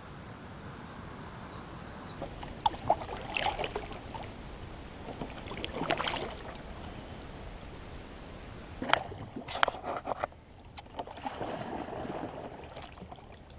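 Kayak paddle strokes in river water: a splash and drip from the blade every two to three seconds over a steady faint hiss of moving water and air.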